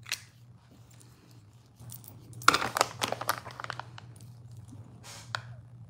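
Close handling noise, crinkling and clicking: a dense run of rapid crackles about two and a half seconds in, lasting about a second, and a shorter cluster near the end, over a faint steady hum.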